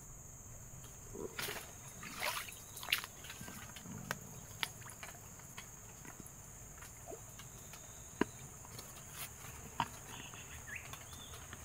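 Tropical swamp-forest ambience: a steady high-pitched drone over a faint hiss, broken by scattered sharp clicks and snaps, with a few short chirps near the end.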